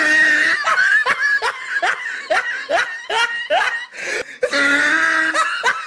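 Loud laughter, a run of short ha-ha pulses about two or three a second, with a brief break about four seconds in before it picks up again.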